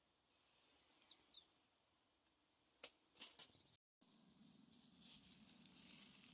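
Near silence, with a few faint clicks around the middle and a brief dead gap just before four seconds in.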